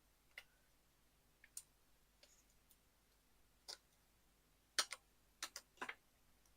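Faint, irregular small clicks and taps of paper-craft pieces being handled on a desk, such as foam adhesive dimensionals being peeled and pressed onto card. There are a few scattered ticks, then a closer cluster of taps near the end.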